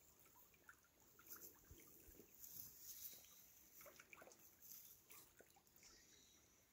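Near silence: faint outdoor ambience with a few soft, scattered ticks and rustles.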